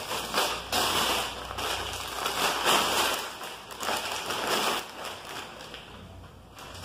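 Brown kraft-paper bag crinkling and rustling as it is handled open and a plastic-wrapped book is pulled out, loudest in the middle and fading near the end.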